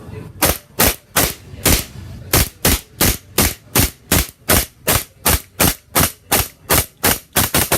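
Army Armament R30 Wilson Combat 1911 gas blowback airsoft pistol firing on green gas: about twenty sharp shots in quick succession, roughly three a second, with a couple of brief pauses.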